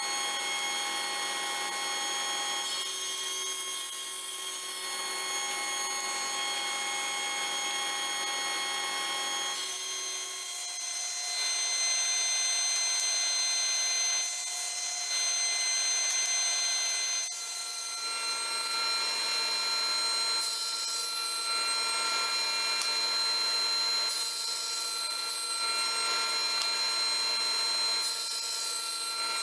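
Powermatic table saw running steadily, its blade crosscutting a thick hardwood board several times, the sound changing as each cut goes through.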